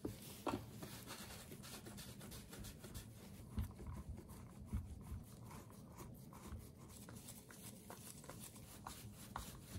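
Faint handling noise of gloved hands working on a plastic chainsaw housing: light rubbing and small clicks, with a few soft knocks.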